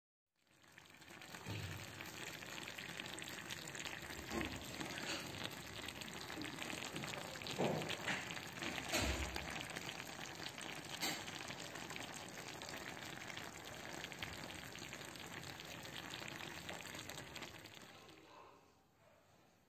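Food sizzling in a clay tajine: a dense, steady hiss with scattered pops. It fades out near the end.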